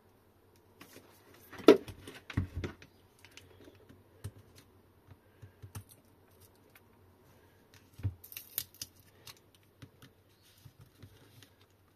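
Handling noises of a battery pack and hand tools on a workbench: a sharp knock just under two seconds in and a couple of thuds right after, then scattered light clicks and a brief scrape around eight seconds in.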